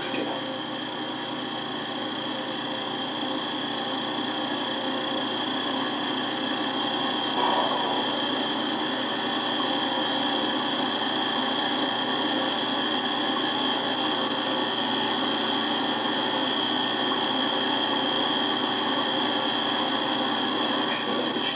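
Sony AV-3400 half-inch reel-to-reel video recorder running in playback: a steady mechanical hum from its tape transport and spinning head drum, with a thin high whine over it.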